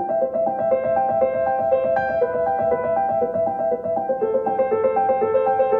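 Background music: keyboard notes in a quick, even repeating pattern.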